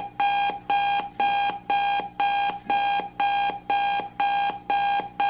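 GE Model 7-4630B clock radio's alarm going off at its set time: a buzzy electronic beep pulsing steadily about twice a second.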